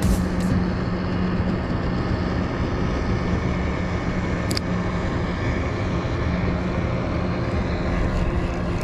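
Bow-mounted electric trolling motor running with a steady hum, with wind rumbling on the microphone.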